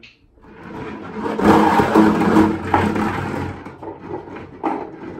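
Small balls tumbling and rattling inside a large plastic water jug as it is spun to mix them for a draw. The sound builds up, is loudest in the middle, then dies away, with a single knock near the end.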